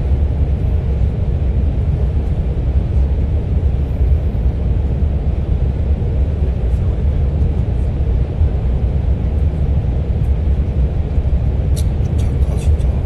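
Steady low rumble of a moving passenger train, heard from inside the carriage, with a few faint clicks near the end.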